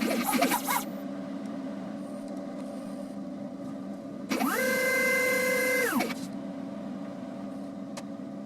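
Hobby CNC pen-plotting machine running: a steady hum from its stepper motors, then about four seconds in a motor whine that rises in pitch, holds for about a second and a half and falls again as an axis speeds up, travels and slows to a stop.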